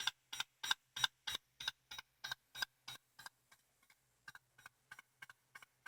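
Atari 1050 floppy disk drive clicking in a steady rhythm of about three clicks a second while it reads and copies a disk. The clicks turn fainter and sparser about three seconds in, over a faint low hum.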